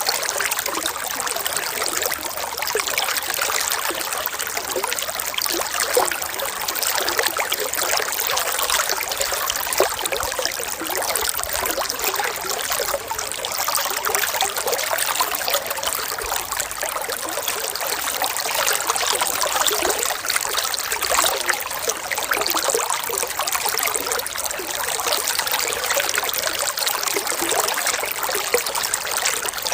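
Water trickling and splashing over stones in a small stream, a steady babbling with many small splashes.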